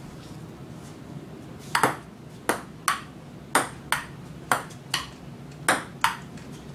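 Ping-pong rally: a ball clicking back and forth off the paddles and the table. About ten sharp knocks start about two seconds in and come in quick pairs, one pair every half second or so.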